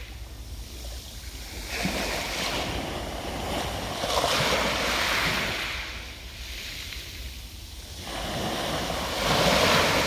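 Small waves breaking and washing up over a pebble beach, the surf swelling and easing three times, about every three seconds, the last surge the loudest near the end.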